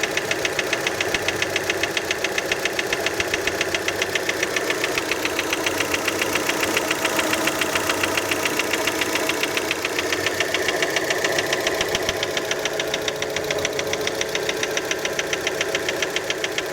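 Fiat Panda engine idling cold with a rapid, even knock on every turn. Many take it for piston slap from the piston skirt.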